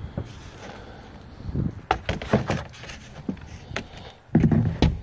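Rigid foam board being handled on a galvanized metal trailer: scattered light knocks and clicks, then a louder cluster of thumps near the end.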